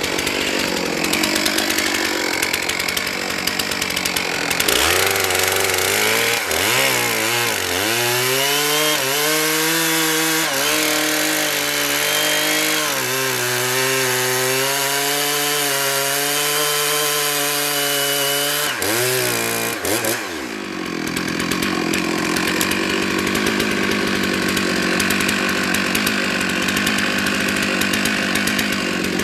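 Chainsaw running at high revs and cutting into spruce: for about fifteen seconds from about five seconds in, its pitch drops and wavers as the chain bogs in the wood, then it runs free and higher again.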